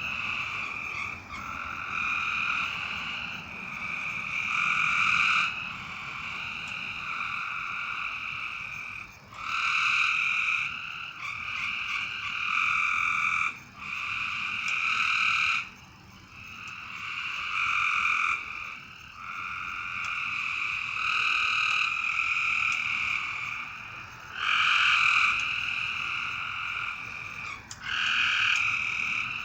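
A chorus of frogs calling at night: long, steady calls a few seconds each, several voices overlapping and starting and stopping one after another.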